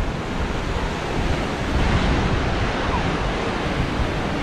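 Ocean surf washing and breaking on the shoreline rocks, with wind buffeting the microphone.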